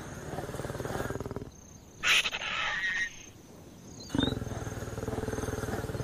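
Lioness growling in two long stretches, with a short, louder snarl about two seconds in.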